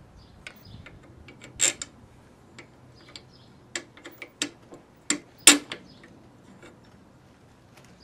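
Sharp clicks and knocks as the engine brake cable and bail lever are handled at a walk-behind mower's handlebar. There are two louder knocks, one just under two seconds in and one about five and a half seconds in, with a few lighter clicks between them.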